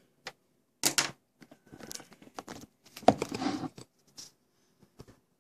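Handling noise: rustling and clatter with small clicks, in two louder bursts about one second and three seconds in, as the camera and work are moved about over the opened oscilloscope.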